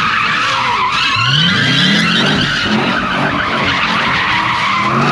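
Car tires squealing continuously as cars spin donuts, with engines revving hard; one engine's pitch climbs sharply about a second in, and again shortly after.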